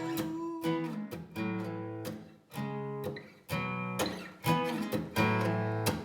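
Acoustic guitar strumming chords in a steady rhythm, each strum ringing and fading, with two short stops in the playing.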